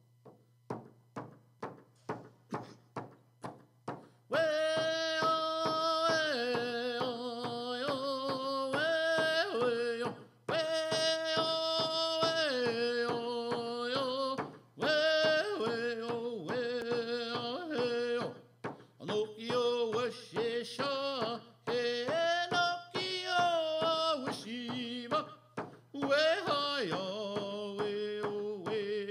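An Abenaki traveling song: a man sings in long held phrases over a steady beat on a hide hand frame drum struck with a stick beater, about two beats a second. The drum plays alone for about the first four seconds before the voice comes in.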